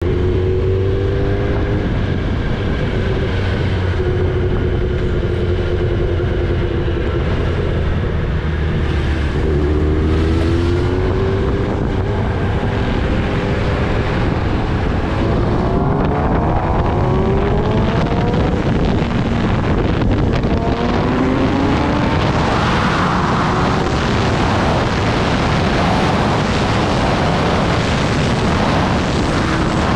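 Kawasaki Ninja ZX-10R's inline-four engine running under way, steady at first, then rising in pitch several times as the bike accelerates. Wind rushes over the microphone as speed builds.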